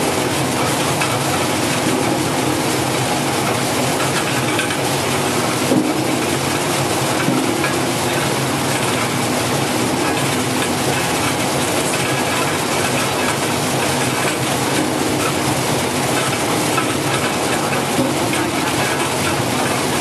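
Six-brush stainless-steel taro peeling and washing machine running: a load of taro corms tumbling and knocking against each other on the turning nylon brush rollers, a steady dense clatter.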